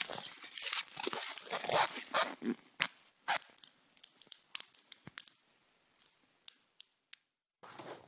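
Small campfire of wet wood crackling: dense crackle and rustle for the first few seconds, then thinning to scattered sharp pops, before the sound cuts off suddenly near the end.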